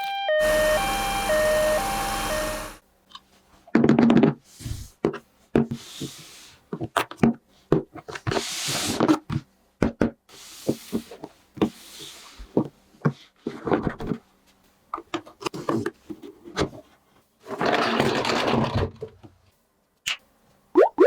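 Two-tone siren sound that cuts off about three seconds in, followed by a long string of clicks, knocks and short rustles of toy parts and packaging being handled.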